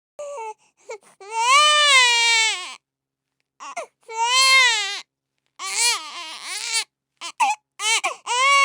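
Baby crying: a string of wailing cries, each rising and falling in pitch, with short gasps of silence between them.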